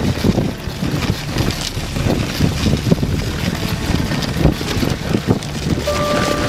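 Wind buffeting the microphone over the uneven rumble and scrape of a dog sled running on snow behind its team.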